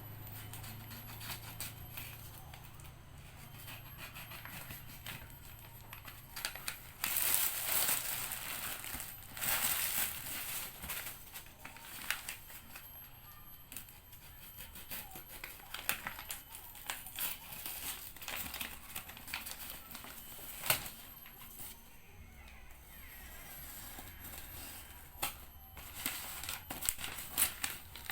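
Parcel packaging being torn and cut open by hand, with irregular crinkling, rustling and tearing and scattered sharp clicks.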